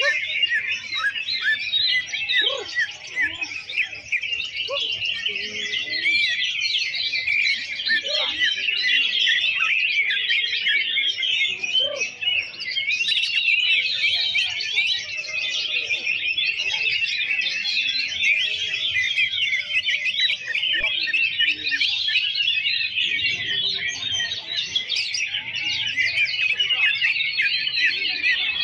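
Many caged cucak ijo (green leafbirds) singing at once in a contest, a dense unbroken chorus of overlapping high chirps and trills.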